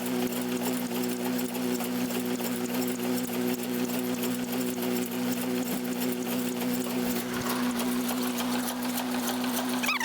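Massey Ferguson No. 12 hay baler running off the tractor's PTO: a steady drone with a fast, even mechanical clatter. A brief high chirping comes in near the end.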